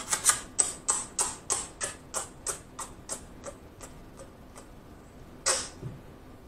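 A quick string of kissing lip-smacks, about three a second, fading steadily, then one louder smack about five and a half seconds in.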